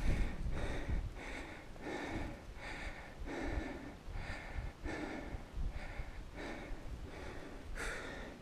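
A climber's heavy breathing, panting in and out about twice a second, over a low rumble on the microphone.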